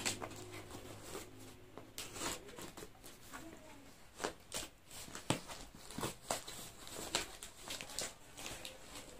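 Cardboard parcel with taped packing being handled and turned over by hand: quiet, irregular rustles, crinkles and taps.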